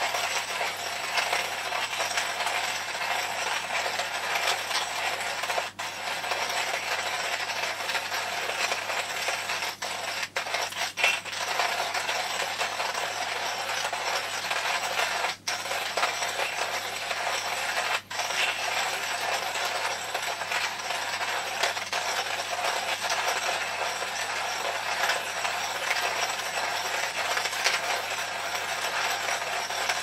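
Rhinowares hand coffee grinder cranked at a steady, even speed, its ceramic burrs crunching coffee beans at the finest grind setting. A continuous gritty crunch with a few brief breaks in the turning.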